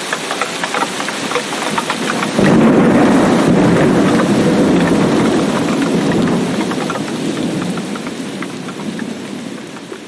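Heavy rain falling with many distinct drop patters, then about two seconds in a roll of thunder breaks in suddenly as a loud low rumble that slowly dies away.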